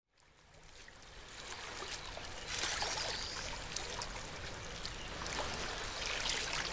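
River water flowing and lapping, full of small trickling splashes, fading in from silence over the first couple of seconds.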